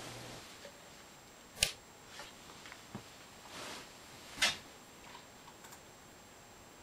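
Scattered sharp clicks and light knocks from handling, the two loudest about a second and a half and four and a half seconds in, over faint room hiss. A low hum stops within the first half second.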